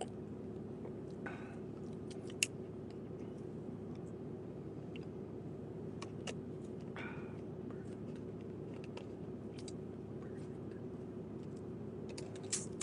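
Steady low hum inside a running truck's cabin, with scattered faint clicks and two brief soft rustles.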